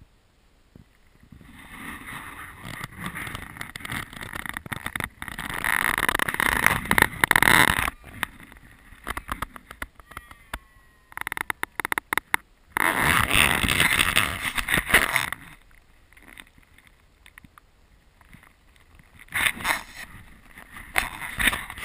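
Nylon tent fabric and a plastic ground tarp rustling and crinkling in three long bursts with quieter gaps between, as the dog inside the tent moves against them.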